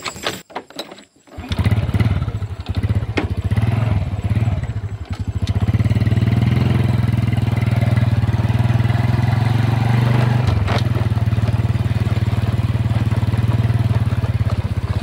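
Small motorcycle engine starting up about a second and a half in, revving unevenly for a few seconds, then running steadily.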